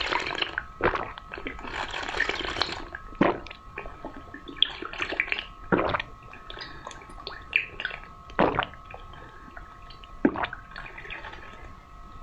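Close-miked drinking: liquid slurped and sipped, then swallowed in about five sharp gulps spaced two to three seconds apart.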